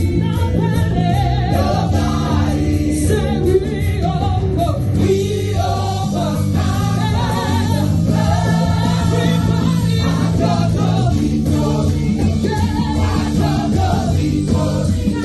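Worship team singing a gospel praise song in choir-style group voices, over steady held chords in the accompaniment.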